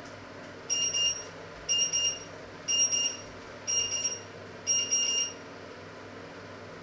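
Electronic kitchen timer alarm beeping: five bursts of rapid high beeps, about a second apart.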